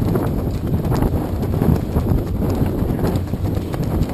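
Wind buffeting the microphone over choppy water, with irregular light knocks and slaps throughout.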